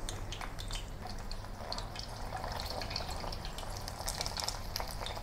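Beancurd-skin pork rolls deep-frying in oil at medium heat: a steady sizzle of bubbling oil with many small crackles and pops.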